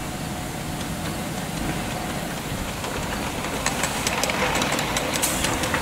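Ridable miniature live-steam locomotive, Illinois Central 574, rolling slowly past with its rider: a steady rumble, with a run of sharp clicks starting a little over halfway.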